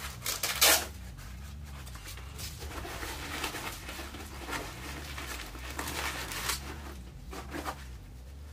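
Fabric armor pad and plate carrier handled and fitted: cloth rustling and rubbing, with a louder rasp about half a second in and fainter scrapes after it, over a low steady hum.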